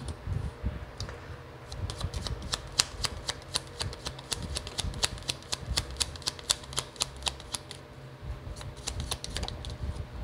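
Tarot deck being shuffled by hand: a rapid, irregular run of sharp card clicks that begins about two seconds in and thins out near the end.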